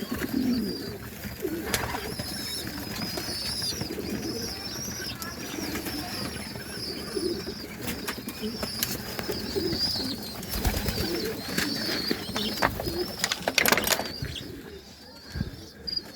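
Pigeons cooing. A thin, wavering high chirping runs through most of it and stops about two seconds before the end, with a few sharp knocks, the loudest ones near the end.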